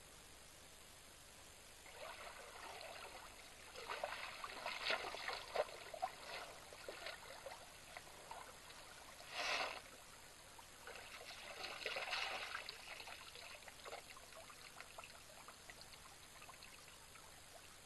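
African elephant sloshing in a shallow waterhole as it rises from lying in the water, water splashing and running off its body in two spells, with one brief louder splash between them.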